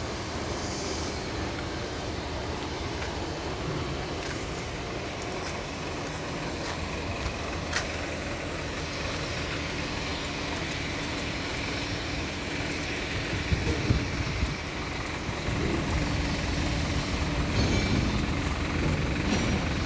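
Car engine running as the car is moved, a steady rumble that gets louder in the second half with a steady hum and a few knocks.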